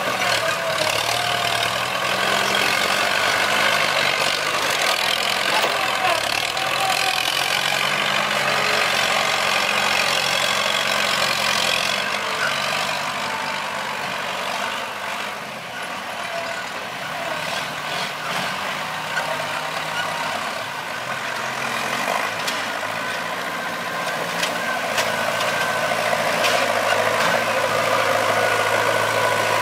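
Farm tractors fitted with hydraulic grab loaders, their engines running steadily as they work.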